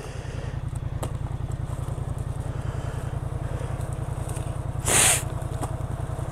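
A steady low engine rumble, like a motor idling. About five seconds in, a brief splash as feet wade through broken pond ice.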